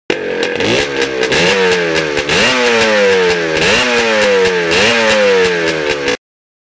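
Motorcycle engine revved about five times. Each rev rises quickly in pitch and dies away slowly. The sound cuts off suddenly near the end.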